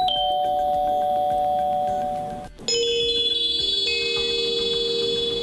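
Honeywell Decor wireless door chime (RCWL3502A) playing its chime tunes: a two-note ding-dong rings out and fades, then about two and a half seconds in a different tune of several bell-like notes starts and changes note about a second later.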